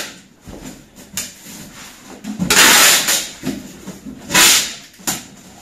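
Packing tape being pulled off the roll to seal a cardboard box, in several rips; the longest and loudest comes about two and a half seconds in, and another about four and a half seconds in.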